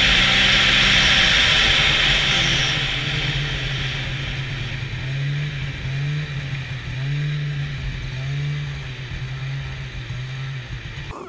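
Snowmobile engine running under way, its note rising and falling every second or so as the throttle changes. A loud rushing noise fades over the first few seconds, and the sound cuts off abruptly near the end.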